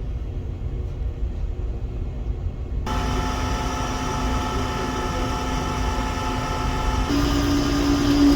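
Conventional lathe running with a steady low rumble. About three seconds in, a steady whine of several tones joins it; near the end the whine steps slightly higher in pitch and gets louder.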